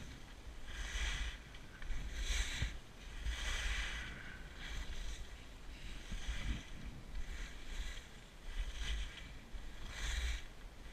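Edges carving and scraping across groomed snow in a run of turns, a swish roughly every second, over a low rumble of wind buffeting the microphone.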